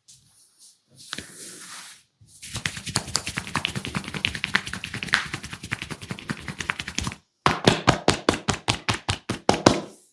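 Percussive hand massage: the masseur's hands tapping and chopping in a fast, dense patter, which stops suddenly. Then comes an even run of sharper slaps at about seven a second.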